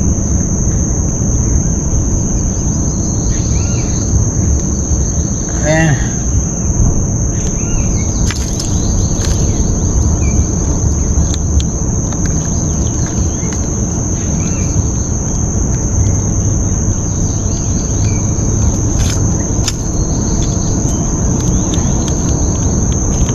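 Steady, high-pitched insect drone that holds one unbroken tone throughout, over a low rumbling background. A few light clicks and knocks are scattered through it.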